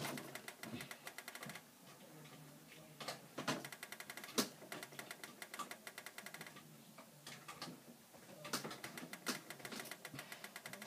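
Faint irregular clicking and tapping in quick runs, with a single louder knock about four and a half seconds in, over a faint steady low hum.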